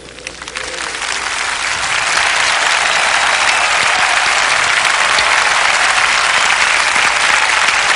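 A very large crowd applauding. The clapping swells over the first couple of seconds and then holds steady.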